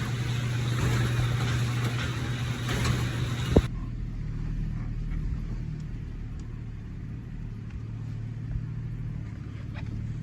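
A car engine running steadily with a low, even hum. Under about the first three and a half seconds there is also a broad rushing noise, and a sharp click comes just as that noise cuts off.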